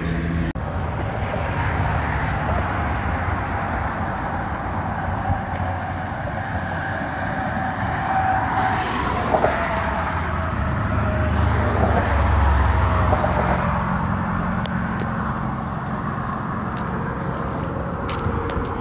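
Steady road traffic running across a bridge, with a louder low rumble as a vehicle passes about twelve seconds in. A few sharp clicks and knocks near the end.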